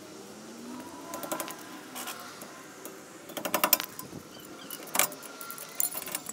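Metal clinks and rattles of a truck's drum-brake shoes and their hardware being worked loose and lifted off by hand: scattered clicks, with a quick run of clicks about three and a half seconds in.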